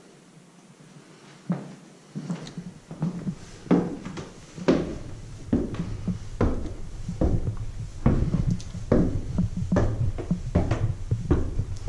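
Footsteps climbing a wooden staircase, one knock per step, starting about one and a half seconds in and getting louder and quicker toward the end, with a low rumble under them.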